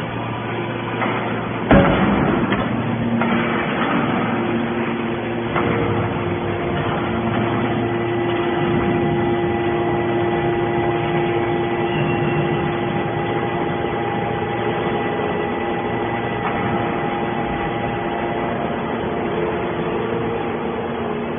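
Horizontal hydraulic scrap-metal baler running: a steady hydraulic hum with a sustained whine. There is a loud bang about two seconds in and a smaller knock near six seconds.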